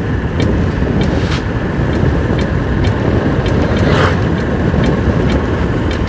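Motorcycle engine running steadily while riding at road speed, with wind and tyre noise.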